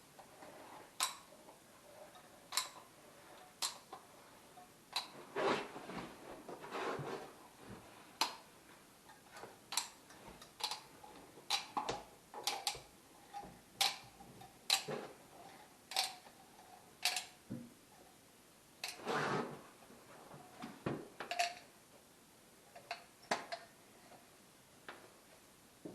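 Irregular sharp clicks and taps, roughly one a second, with two longer scraping or rustling sounds, one a few seconds in and one past the middle.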